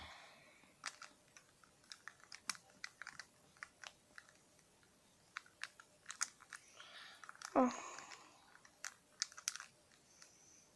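Small plastic speed-cube pieces clicking and knocking against each other as a corner piece is fitted and a layer is turned during assembly: faint, irregular light clicks.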